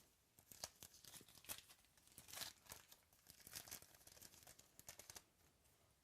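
Faint crinkling and tearing of a trading-card pack wrapper being opened and handled, a dense run of small crackles that stops about five seconds in.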